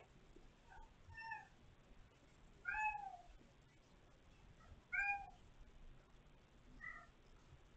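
A kitten meowing: about five short, high meows, each rising and then falling in pitch, the loudest about three and five seconds in.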